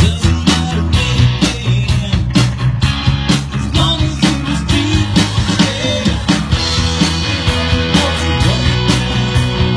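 Live rock band playing amplified electric guitars over a drum kit, with a steady beat.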